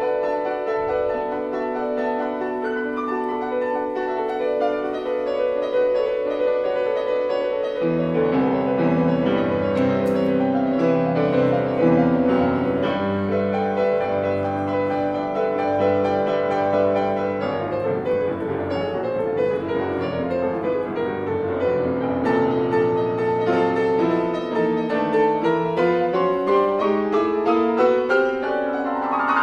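Grand piano played solo: held chords, with deep bass notes coming in about eight seconds in and a rising run of notes near the end.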